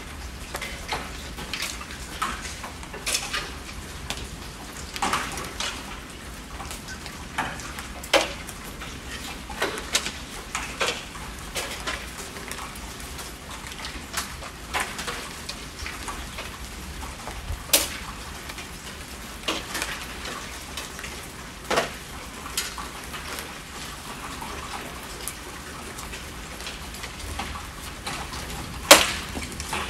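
Rain falling: a steady hiss with irregular, louder drops striking a hard surface as sharp ticks, the loudest about a second before the end.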